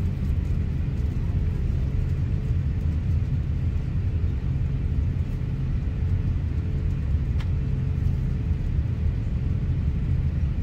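Steady low rumble of airliner cabin noise aboard an Airbus A350-900 on the ground before takeoff, with a faint steady hum above it and a small click about seven seconds in.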